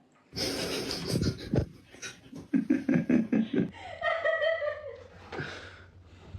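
A person laughing in a run of short bursts, followed by a drawn-out vocal sound that falls slowly in pitch.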